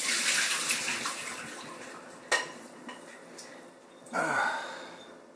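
Water poured off solidified cannabis butter through a strainer, a splashing rush that thins out over about two seconds, then a single sharp clink of kitchenware, and another brief rush of sound near the end.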